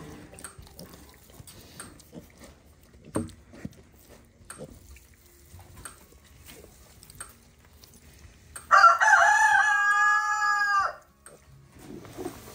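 A rooster crows once, a single long call of about two seconds near the end. Before it, faint knocks and rustling come from piglets feeding at a pan in straw.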